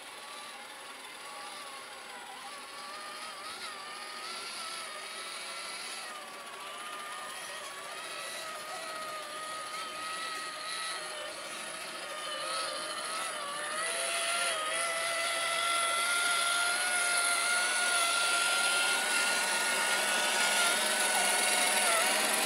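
Electric motors and geared drivetrains of several RC scale crawler trucks whining as they drive through a muddy puddle, the pitch wavering with the throttle. The whine grows louder about two-thirds of the way in as the trucks come closer.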